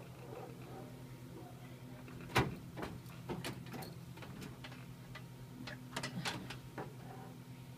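Clicks and light knocks of coaxial cable connectors and calibration parts being handled at a network analyzer's test ports: one sharp click about two seconds in, then a run of smaller taps and clicks, over a steady low hum.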